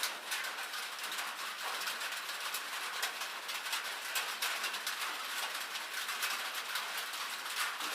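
Rain drumming on a tin roof: a dense, steady patter of drops with many sharp individual ticks on the metal.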